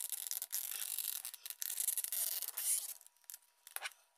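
Plastic tail of a Playmates Godzilla Terrestris figure being pushed and twisted onto its tail pin: plastic scraping and rubbing on plastic in irregular strokes. The scraping eases off about three seconds in, with a couple of clicks as the tail seats.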